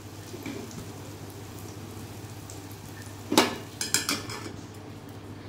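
Rava batter sizzling in a small aluminium pan on a gas flame, then a metal plate set over the pan as a lid: one loud metallic clank about three and a half seconds in, followed by a couple of lighter rattles as it settles.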